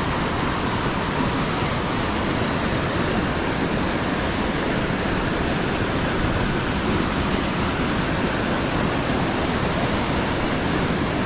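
Waterfall rushing: a steady, even roar of falling water with no breaks. A faint steady high tone sits on top of it.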